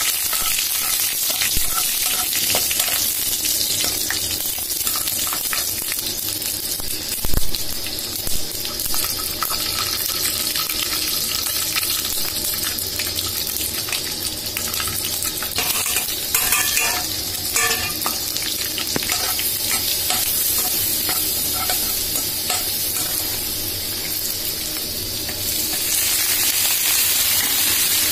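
Oil sizzling in a kadai as a tempering of dried red chillies, mustard seeds and lentils, and later moringa leaves with scrambled egg, is fried and stirred, with a steel ladle clicking and scraping against the pan. A single loud knock comes about seven seconds in.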